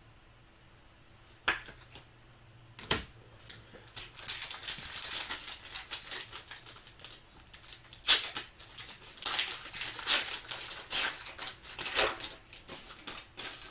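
Trading-card pack wrapper crinkling and cards being handled and flicked through, with a few sharp clicks and snaps.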